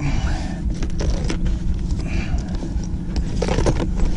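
Gear being rummaged and handled in a small fishing boat: scattered scraping, clicking and rattling over a steady low rumble, with a louder rattle about three and a half seconds in.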